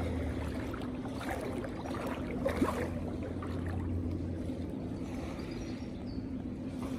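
Lake water lapping and sloshing in the shallows around an inflatable kayak, with a few brief splashes near the middle. A steady low hum runs underneath and fades out about four seconds in.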